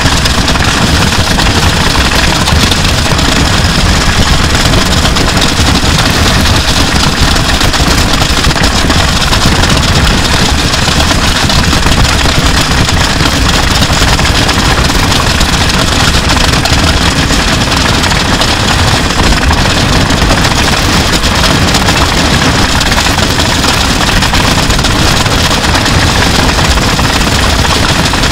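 An electric guitar and bass guitar, their pickups wired by line, dragged along wet asphalt together with a drum kit picked up by an overhead microphone: a loud, unbroken scraping and rumbling noise with no separate hits or pauses.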